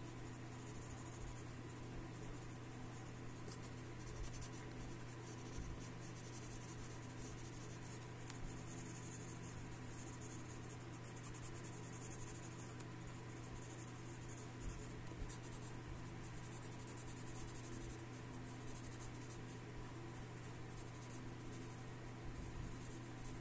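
Graphite pencil shading on paper: a soft, continuous scratching of many short, irregular strokes, over a steady low hum.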